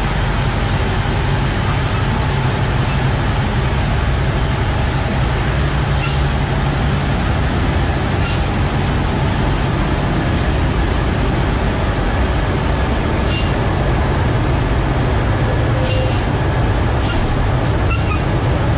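Heavy truck's diesel engine running steadily as it rolls slowly off the cargo ramp, with several short air-brake hisses.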